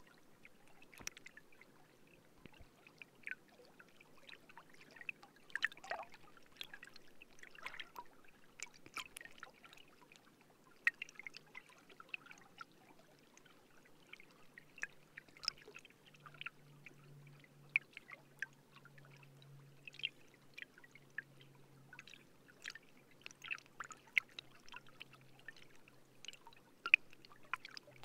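Grass stems picked up by a contact microphone in the wind: irregular small ticks and crackles, over a faint low wavering hum that grows stronger about halfway through.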